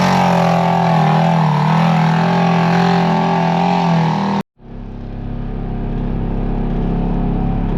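Polaris RZR side-by-side engine running hard under load, its pitch wavering up and down with the throttle as it climbs. About four and a half seconds in, the sound cuts off abruptly, and a duller, steady low sound fades in.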